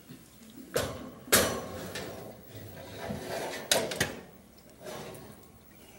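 A lidded metal roaster is loaded into a kitchen oven. There are a few clanks and knocks from the oven door, the rack and the pot, the loudest about a second in and two more in quick succession midway, with lighter metal rattles between.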